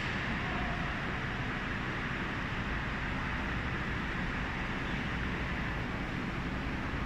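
Steady, unbroken mechanical running noise with a hiss from a telescopic mast's raising drive as the mast extends.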